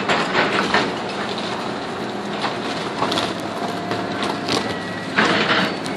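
Caterpillar 315C excavator with a demolition claw, its engine running steadily while it tears into a building. Over the engine come the cracking and crashing of breaking wood and falling debris, in clusters in the first second and again about five seconds in.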